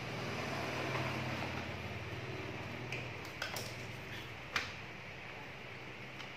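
A plastic packet of copier developer powder being handled, with a few short crinkles and clicks, the sharpest about two-thirds of the way through, over a steady background hum.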